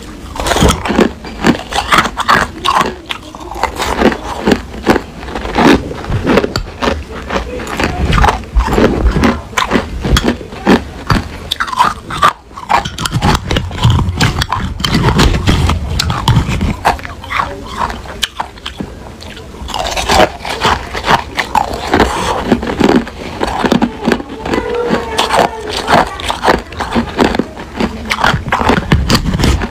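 Close, loud crunching of hard crushed ice being bitten and chewed, a dense run of sharp cracks and crackles. A metal spoon scrapes and clinks through the ice in a glass mug. The crunching thins out briefly a little past the middle, then comes back.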